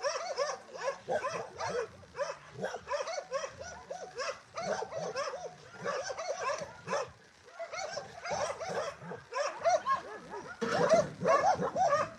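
Several dogs barking and yipping, many short high barks overlapping in quick succession, loudest near the end.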